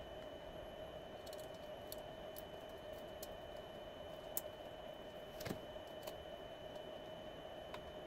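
Faint, sparse clicks and light knocks of a sheet-metal drive tray and a small metal SSD bracket being handled and fitted together, a handful of single ticks spread through, over a faint steady hum.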